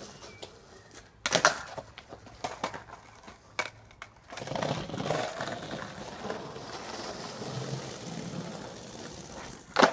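Skateboard being ridden and flipped: a loud board clack about a second in, a few lighter clacks over the next two seconds, then several seconds of wheels rolling, and another hard board impact near the end.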